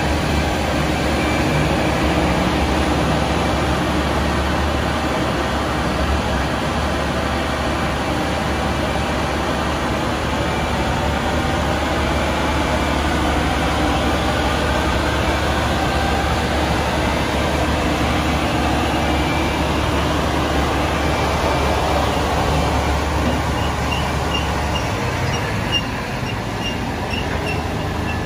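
A fire truck's diesel engine and aerial hydraulics run steadily as the Seagrave Aerialscope tower bucket is lowered. The low drone drops off about three seconds before the end, and a faint, evenly repeated beeping comes in near the end.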